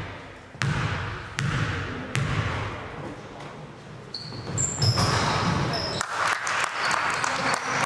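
A basketball dribbled on a gym floor, three bounces about three-quarters of a second apart, then from about halfway in sneakers squeaking on the court over a rising din of play and voices in the hall.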